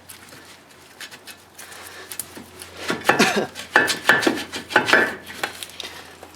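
Brake caliper being worked off the rotor: metal scraping and clanking, louder in the second half, with a few clanks that ring.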